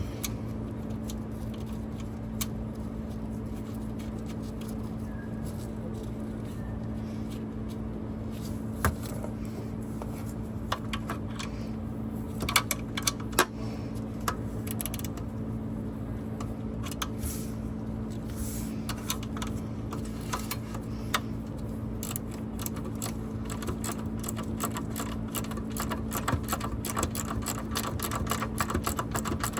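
Hand ratchet and wrench clicking against metal fasteners under a bus seat, scattered at first and then a fast run of clicks in the last third, over a steady low hum.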